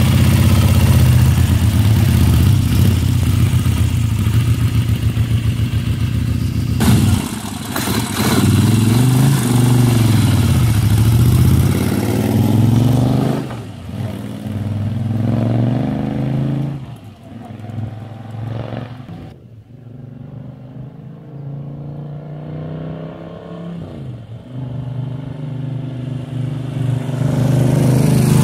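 Moto Guzzi 850 Le Mans III's 844cc air-cooled 90-degree V-twin running steadily at first. About seven seconds in it revs up and pulls away, the revs rising and falling through the gears as it fades into the distance. Near the end it grows loud again as the bike comes back past.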